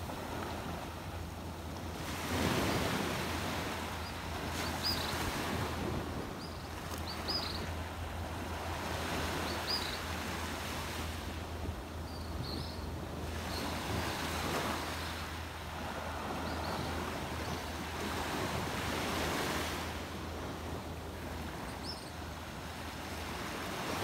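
Sea surf washing onto a sandy beach, swelling and fading in slow waves about every four to five seconds, with short high chirps now and then.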